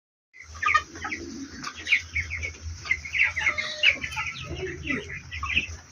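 A flock of four-week-old broiler chickens calling, with many short overlapping peeps and clucks, over a low steady hum.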